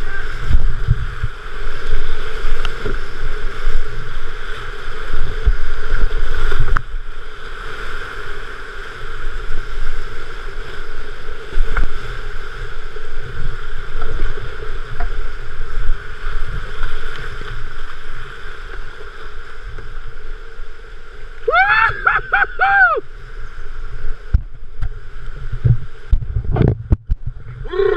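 Fast whitewater rushing around a kayak, with water slapping against the boat-mounted camera in heavy low thumps through the first several seconds. About three-quarters of the way through, a short shouted voice rises and falls a few times.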